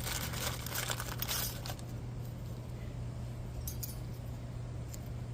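Light metallic clinking and rattling as a thin steel brake pad clip is handled and pressed into the caliper bracket, busiest in the first couple of seconds and then a few faint ticks, over a steady low hum.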